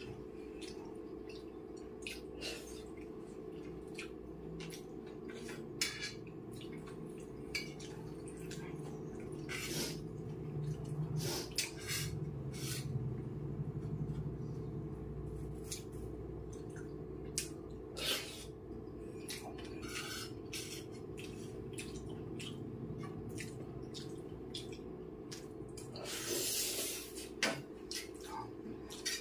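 Steel spoon clicking and scraping against a stainless steel plate as rice and curry are mixed and scooped, with wet mouth sounds of chewing. The clicks come irregularly, a few seconds apart or in quick runs.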